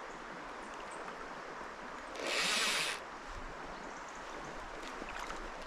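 Steady rush of river water and wind, with a louder hissing rush lasting under a second about two seconds in.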